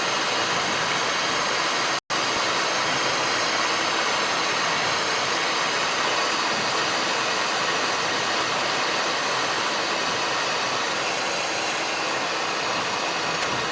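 Steady hiss of engine and airflow noise in the cockpit of a Cessna Citation M2 jet on short final, cut by a brief silent dropout about two seconds in.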